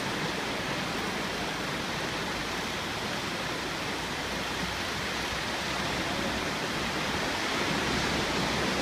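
Steady wash of small surf breaking and running up the sand, a continuous even noise.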